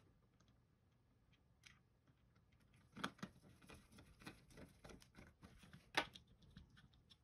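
Precision screwdriver turning a small screw into a plastic computer mouse's circuit board, a run of faint clicks and scrapes starting about three seconds in. About six seconds in comes one sharp clack, the loudest sound.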